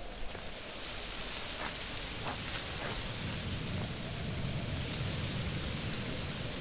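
A steady rushing hiss, rain-like, rising in level over the first seconds, with a deep low rumble swelling in about halfway through and a few faint short chirps in the first half.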